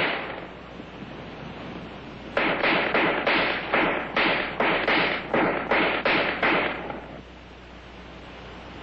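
AR-10 rifle firing 7.62 mm NATO rounds in quick succession: about a dozen single shots, each a little under half a second after the last, after a longer burst that fades at the very start.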